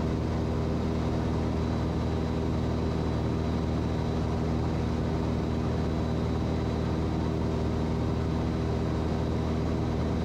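Cessna 182's piston engine and propeller at takeoff power during the climb-out: a steady, even drone heard from inside the cockpit.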